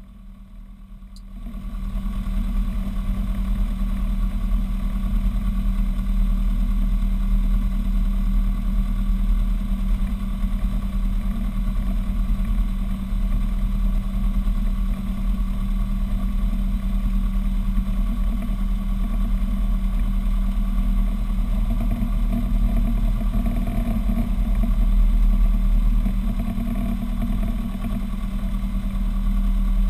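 Robin DR400 light aircraft's piston engine and propeller running steadily at low taxi power, heard from inside the cockpit. The sound comes up about a second in and swells slightly a little past two-thirds of the way through.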